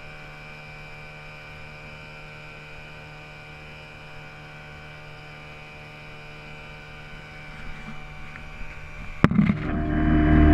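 A steady mechanical hum with several fixed tones, like a running engine. About nine seconds in, a sharp click, then a louder sound swells up near the end.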